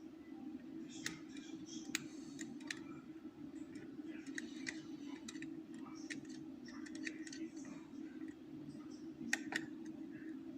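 Lever pick and tension wire working inside an ERA five-lever curtained lock: small irregular metal clicks and scrapes as the levers are lifted and the bolt is tensioned.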